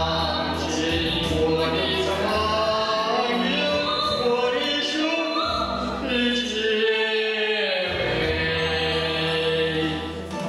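A man and a woman singing a duet over instrumental accompaniment, in a large reverberant church. Near the end they hold a long note, which stops just before the accompaniment carries on alone.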